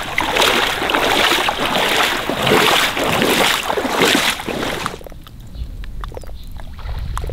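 A person in waders sloshing through shallow water, a splash with each step, about two steps a second. The wading stops about five seconds in, leaving a quieter low rumble with a few small clicks.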